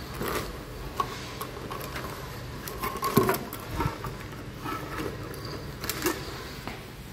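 Irregular clicks, knocks and rustling of hands handling tools and the copier's metal parts, with the loudest knock about three seconds in.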